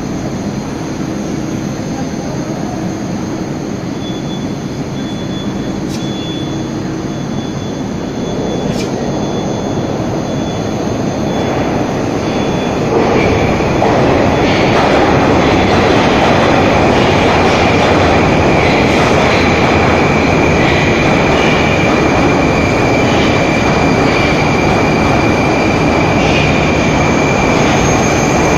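Moscow metro train running, a dense rumble and rush of noise that grows louder about halfway through. A high, steady whine joins it from then on.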